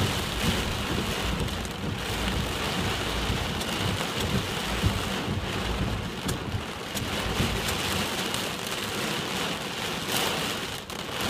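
Heavy typhoon rain falling steadily, with a low rumble underneath that fades out about two-thirds of the way through.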